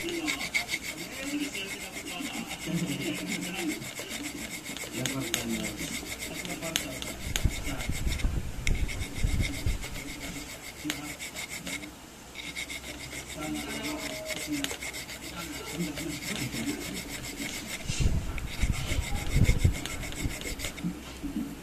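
Hand file rasping in quick back-and-forth strokes on the edge of a steel part, pausing briefly twice. It is taking off excess steel so the part fits flush against the barrel.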